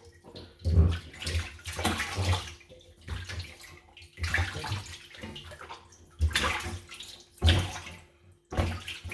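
Water splashing and sloshing in irregular bursts, about once a second, as a whole raw chicken is rubbed and rinsed by hand in cold water to clean off loose skin.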